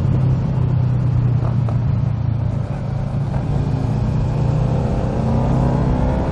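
Motorcycle engine running on the road, its steady drone mixed with wind noise on the helmet mic, then pulling away with a rising pitch from about four seconds in.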